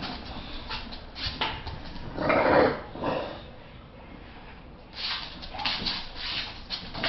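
English bulldog chewing and tussling with a plush toy on a blanket: scratchy rubbing and scuffling, with one louder dog noise a little over two seconds in.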